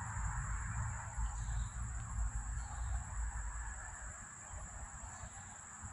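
Quiet outdoor ambience: a low rumble that fades over the first few seconds, a faint steady high whine, and faint short chirps about once a second.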